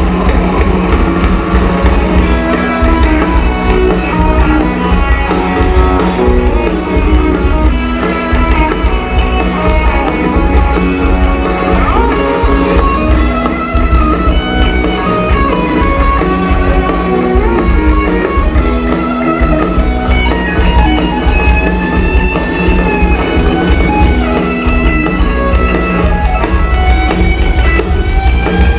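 Live rock band playing loud: electric guitar lines from a Stratocaster-style guitar over drum kit and bass, heard in the room from the audience.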